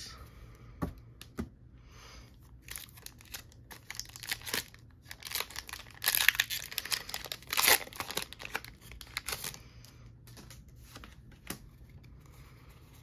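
A foil Pokémon booster pack being torn open and its wrapper crinkled as the cards are pulled out: a run of crackly rips and rustles, densest about six to eight seconds in.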